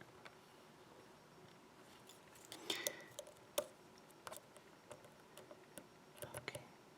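Faint, scattered metallic clicks and scrapes of a lock pick and tension wrench working the pin stack of a small Union 4-pin padlock, with a few sharper clicks a little under three seconds in and again near the end.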